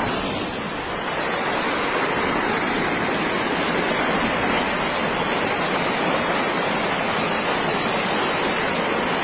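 Steady, loud rushing water from the cyclone's storm, an even hiss with no breaks.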